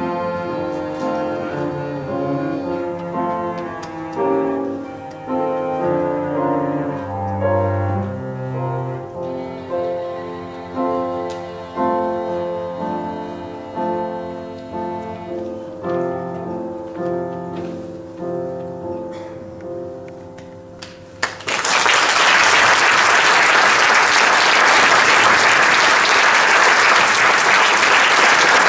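Cello and piano play the closing bars of a classical piece, growing quieter toward the end. About 21 seconds in, the music stops and an audience breaks into steady applause.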